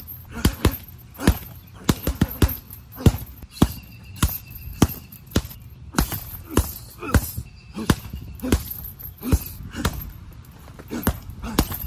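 Gloved punches landing on a hanging heavy bag in quick, irregular combinations: sharp thuds, often two or three in fast succession, several a second.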